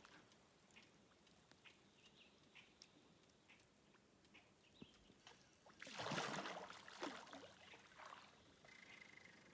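Near silence with faint scattered ticks and short high chirps. About six seconds in there is a brief rush of noise lasting about a second, and near the end a thin steady high tone.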